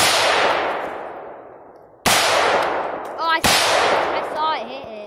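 Three shots from an AR-15 semi-automatic rifle: one at the start, one about two seconds later and one about a second and a half after that, each with a long echoing tail that dies away through the woods.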